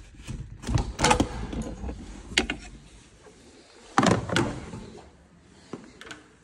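Old gear selector cables of a Citroën Dispatch van being dragged out from under the dashboard, their plastic ends and sheaths knocking and rattling against the panels and bodywork. A few loud clatters, the biggest about a second in and about four seconds in.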